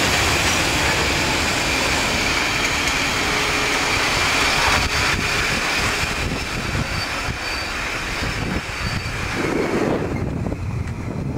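Passenger train of coaches running along the line, heard from the train itself: steady wheel-on-rail rumble and rushing air. Near the end the hiss drops away and scattered clicks from the wheels come through as the train eases.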